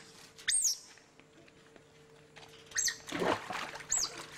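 Short, high, squeaky animal calls, each rising and then falling in pitch, repeated several times. A brief rough, noisy sound comes about three seconds in.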